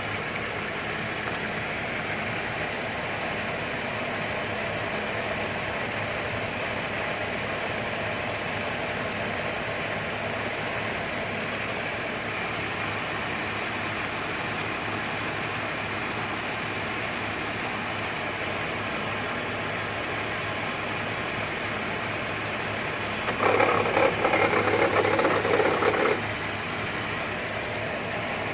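2008 GMC Acadia SLT's 3.6-litre V6 idling with a steady rattle, which the owner takes for a failing pulley bearing. About 23 seconds in the sound grows louder for around three seconds, then drops back.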